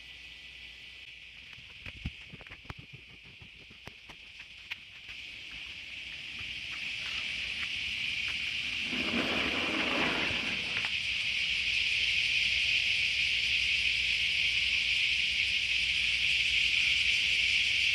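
Insects buzzing steadily, growing louder over the first twelve seconds and then holding. A few light clicks come in the first five seconds, and a short rustle about nine seconds in.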